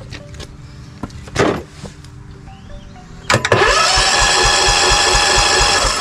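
A knock about a second and a half in, then an electric starter cranking a V-twin mower engine with its spark plugs out and a compression gauge on one cylinder. The starter's whine rises as it spins up, then holds steady with a pulse about four times a second. The gauge reads only about 8 pounds on this cylinder, a sign of low compression.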